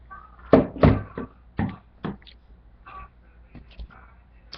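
A plastic mustard squeeze bottle being handled over a plate: a quick run of short, sharp knocks, the loudest two about a second in, then a few fainter taps.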